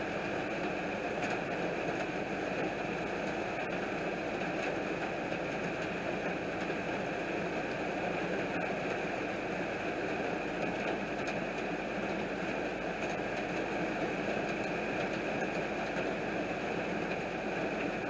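Heavy rain beating on a car's windshield and roof, heard from inside the cabin as a steady, unbroken wash of noise.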